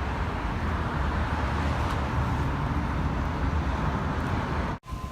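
Steady outdoor background noise, a low rumble with hiss, that breaks off abruptly near the end.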